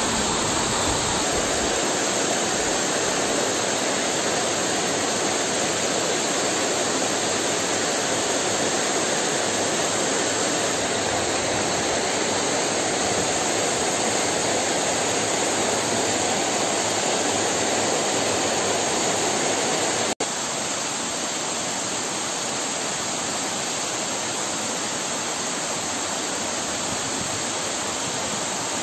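Waterfall cascading over boulders: a steady rush of falling water. About two-thirds of the way through it cuts out for an instant and comes back slightly quieter.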